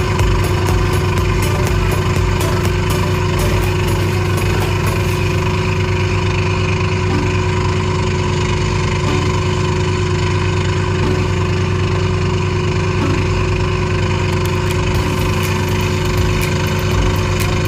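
Small inboard engine of a bangka (outrigger motorboat) running steadily at cruising speed, with water rushing and splashing along the hull and outriggers.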